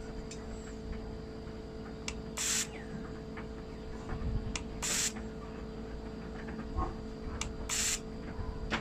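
Fuel injector on a test machine spraying brake cleaner in three short hissing bursts, about two and a half seconds apart, over a steady electrical hum. The injector is being fired to check its spray pattern after cleaning.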